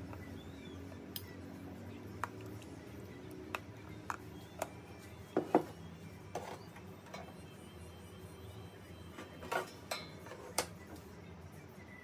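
Metal kitchen tongs and cookware clinking: a scattered run of about a dozen sharp clicks and clanks, the loudest about five and a half seconds in and another cluster near ten seconds.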